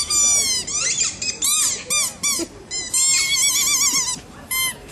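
Birds giving a rapid series of high, squeaky calls, each one a short rising-and-falling squawk, with a warbling trill about three seconds in.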